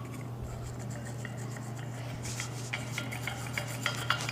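Small clicks and scraping of a colour pencil tip rubbing and tapping against a bowl of water as it is worked to release its colour, sparse at first and busier over the second half.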